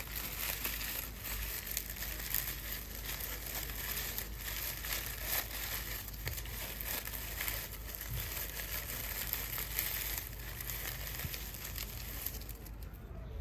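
Dry banana leaves crinkling and crackling as they are folded and rolled by hand into a ring, a steady run of many small crackles.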